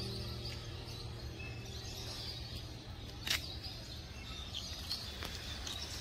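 Small birds chirping in trees over outdoor ambience, with one sharp chirp about three seconds in. A low steady hum fades out after about four seconds.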